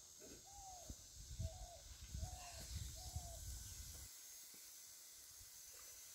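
A bird calling in a string of short, arched whistled notes, one about every half-second to second. Soft low knocks and rumble sit under the first few seconds, then stop.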